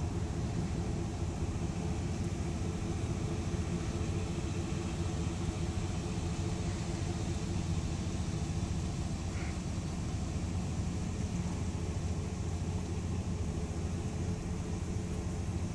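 Steady low rumble of a car's engine and tyres at slow speed, heard from inside the car.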